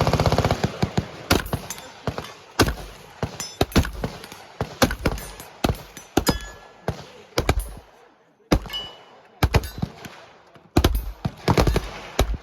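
Gunfire on a shooting range: a fully automatic burst cuts off about half a second in, followed by scattered single shots at an uneven pace, some in quick pairs.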